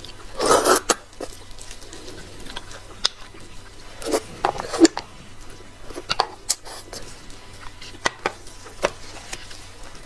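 Plastic-gloved hands pulling braised meat off large beef marrow bones: scattered wet rustling and sharp clicks, loudest about half a second in and again around four seconds in.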